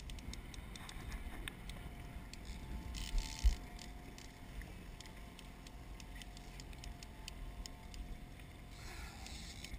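A boat's motor hums steadily under low wind rumble and water slapping against the hull. A sharp thump comes about three and a half seconds in.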